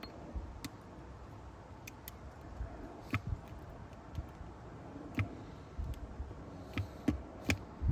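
Small precision tools clicking and tapping against an iPhone's internal parts during reassembly: faint, scattered clicks at irregular intervals, about seven of them.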